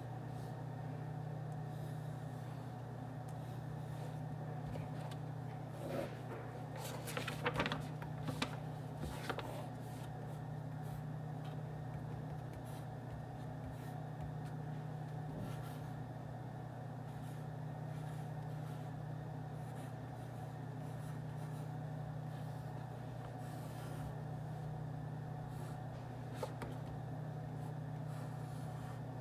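Office ambience: a steady low hum with a faint even hiss, broken by a short run of light clicks and taps about six to nine seconds in and one more near the end.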